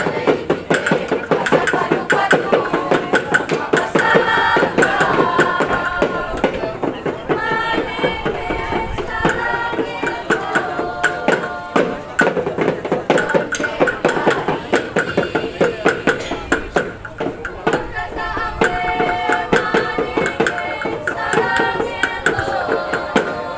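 Maengket dance music: a group singing a melody over a steady drum beat.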